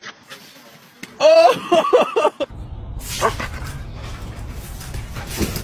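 A dog barking and yelping in a short run of high, pitched cries lasting about a second, followed by a low steady rumble.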